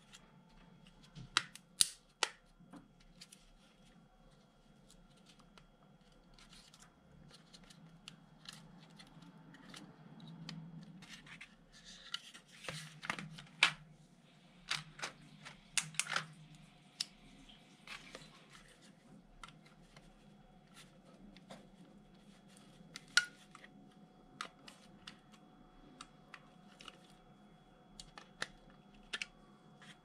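Scattered sharp clicks and light scrapes from handling a Mercedes power-window switch and its small plastic parts, with a denser stretch of scraping and rustling near the middle.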